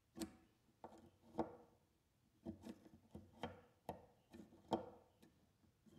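Faint, irregular clicks and light knocks, about a dozen in all, from a clamp meter and its test probes being handled and moved against a receptacle.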